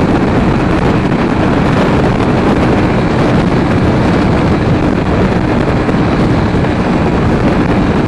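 Wind rushing over the microphone, heavy and steady, over the constant drone of a Sinnis Terrain T125's 125cc single-cylinder engine while the motorcycle is ridden at a steady speed.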